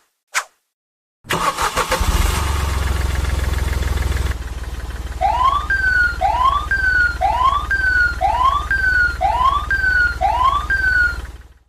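Sound effect of an engine starting about a second in and running with a steady low hum, then a siren over it: a rising whoop followed by a short falling tone, repeating about every 1.2 seconds, six times. It all cuts off suddenly near the end.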